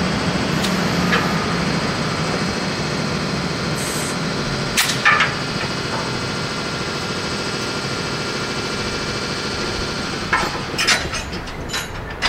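Steady running noise of a standing JR EF64 1000-series electric locomotive. A couple of sharp metallic clanks come about five seconds in, and a quick cluster of clanks and knocks comes near the end.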